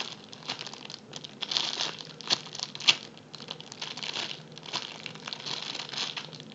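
Clear plastic packaging bag crinkling and crackling irregularly as hands handle a soft bun-shaped squishy inside it, with one sharper crackle about three seconds in.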